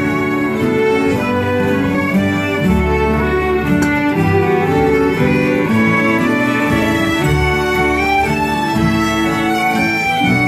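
A folk jam ensemble of fiddles, a concertina, acoustic guitars, a mandolin and an upright bass playing a tune together, with steady held melody notes.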